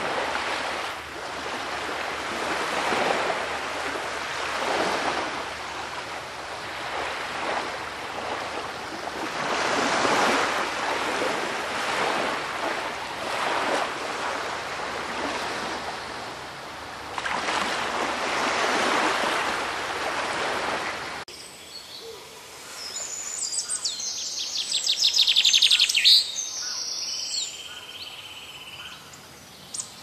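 Small surf breaking and washing up a sandy beach, the wash swelling and falling every few seconds. About two-thirds of the way through it cuts off abruptly, and a songbird sings a fast run of repeated high notes that grows louder for a few seconds before stopping.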